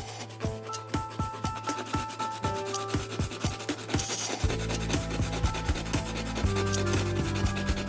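Hand sanding or filing on a repaired plastic part, steady back-and-forth strokes about two to three a second. A steady low hum joins in about halfway through.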